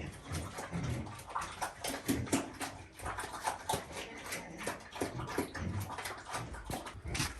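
Short animal calls among many quick clicks and knocks.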